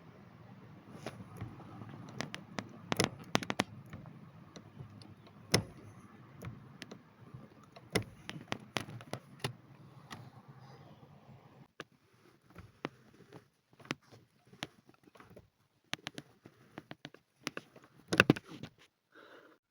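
Clutch pedal of a manual Toyota Yaris clattering with sharp, irregular clicks as it is pressed: the pedal's joint shifts out of place under the foot. A low steady hum sits under the clicks for the first half and stops about twelve seconds in.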